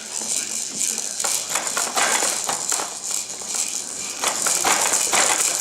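Continuous irregular rattling made of many quick shakes, getting louder near the end.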